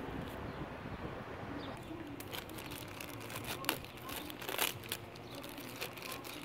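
Thin plastic parts bag crinkling and rustling as it is pulled open by hand, a dense run of sharp crackles starting about two seconds in.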